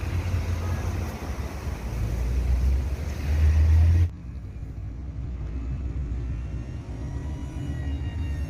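Wind rumbling on the microphone together with the hiss of a small electric RC jet flying. The hiss cuts off abruptly about four seconds in, leaving the wind rumble and a faint high whine.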